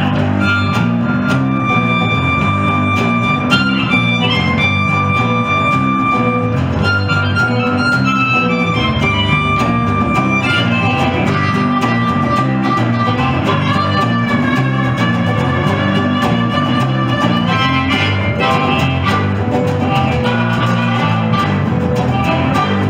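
Blues band playing an instrumental passage: a harmonica carries the lead with long held notes and a few bends over a strummed resonator guitar and bass guitar.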